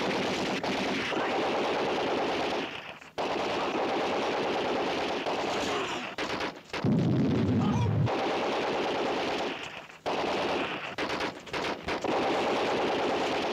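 Rapid automatic gunfire in long sustained bursts, with short breaks about three, six and ten seconds in. About halfway through, a deep low rumble lasting about a second is the loudest sound.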